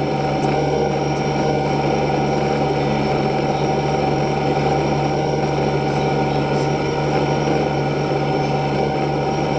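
Steady mechanical hum of a small motor or engine, holding several constant tones with no change in pitch.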